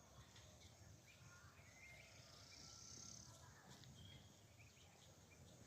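Near silence: faint outdoor background with a few faint, short chirps and a brief faint hiss a little past the middle.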